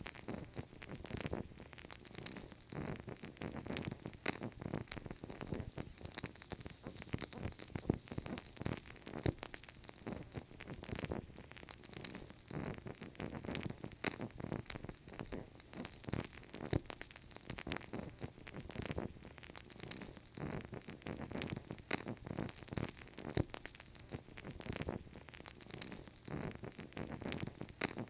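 Wood fire in a fireplace crackling steadily, with many small irregular snaps and pops over a low rushing noise.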